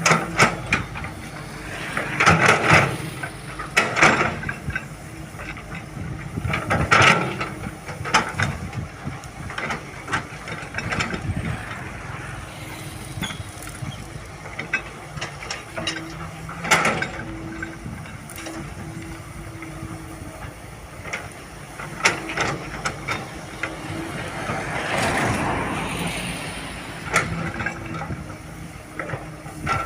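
Cat 320 GC hydraulic excavator working: a steady diesel engine hum with repeated sharp clanks and knocks every few seconds, and a rising rush of noise a little before the end.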